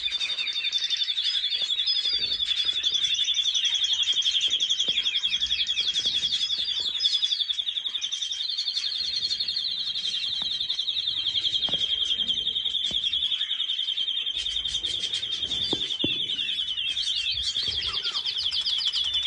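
Birds chirping and singing over a dense, continuous high-pitched trill that runs without a break.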